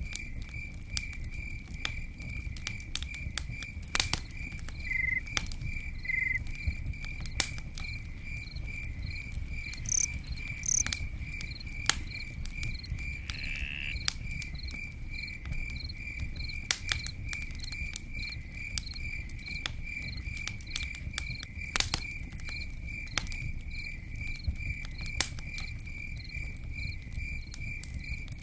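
Campfire crackling, with irregular sharp pops and snaps over a low rumble of burning wood. A cricket chirps steadily behind it in a fast, even pulse.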